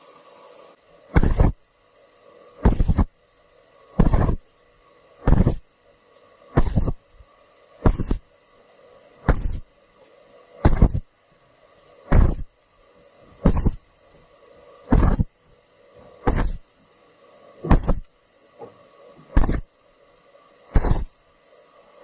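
A hammer striking metal in slow, steady blows, about one every second and a half, each with a short ring, over a faint steady hum.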